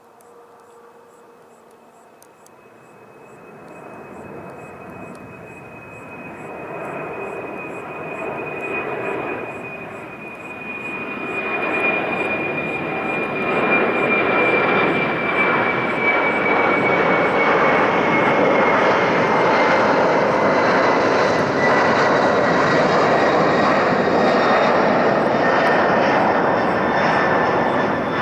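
Jet engines of a Cargolux Boeing 747-400F, a four-engined freighter, building from faint to a loud roar over about twelve seconds as it comes closer, then holding loud. A high fan whine slowly falls in pitch as the aircraft passes.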